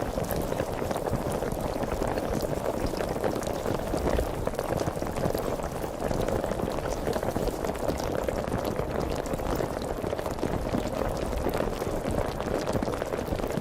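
Sparkling water fizzing: a steady, dense crackle of countless tiny bubbles popping.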